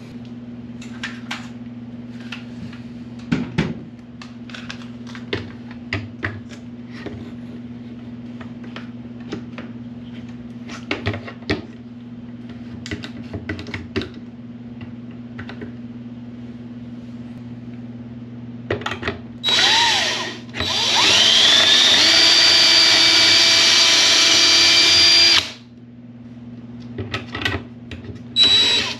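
Cordless drill boring a hole for a cabinet handle through a drilling jig's guide into a wooden cabinet door: a short burst, then a run of about four seconds with a rising whine that stops abruptly, and another brief start near the end. Before that, scattered clicks and knocks of the jig and bar clamp being fitted to the door.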